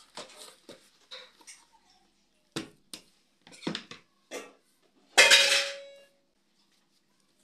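Kitchen handling sounds as chapati dough is worked in a plastic bowl and turned out onto a table: soft rustling at first, then a few sharp knocks of the bowl and a knife on the tabletop. About five seconds in comes the loudest: a single clatter with a brief ring.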